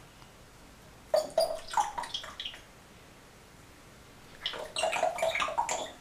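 African grey parrot making two short bursts of wordless chattering mimicry, the first about a second in and the second near the end.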